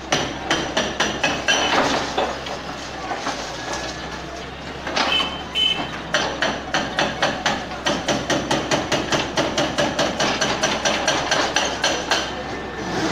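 Hydraulic breaker hammer on an excavator pounding concrete with rapid, evenly spaced blows, about four or five a second. It stops about two and a half seconds in and starts again about two seconds later.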